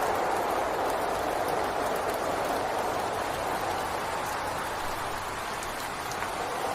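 Steady rain falling: an even hiss, easing slightly for a moment near the end.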